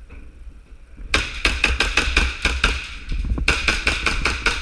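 Airsoft gun firing in rapid strings of sharp clicking shots, starting about a second in, pausing briefly near the three-and-a-half-second mark and then firing again, over a low steady rumble.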